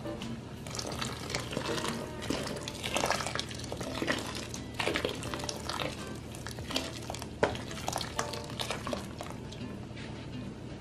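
Water poured from a jug into a large aluminium pot of kidney beans, splashing and gurgling in uneven spurts for most of the stretch. Background music plays underneath.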